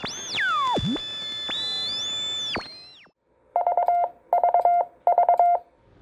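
Electronic logo sound effect: synthesizer tones glide up and down, then three short bursts of rapid, even-pitched beeping.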